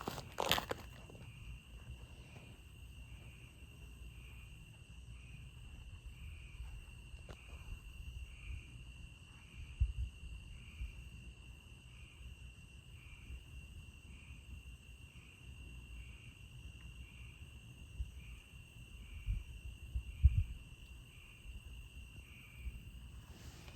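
Night insects trilling: a steady high-pitched drone with a regular pulse about once a second. A few low bumps stand out, the loudest about ten and twenty seconds in.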